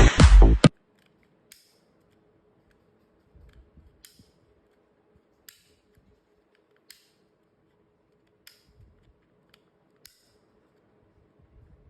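Electronic dance music cuts off within the first second. Then come faint, sharp clicks, single ones spaced about a second and a half apart, over a faint steady hum.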